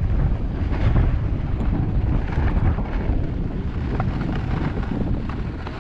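Wind buffeting the microphone of a skier's body-worn camera, a low rumble with the hiss of skis sliding on groomed packed snow.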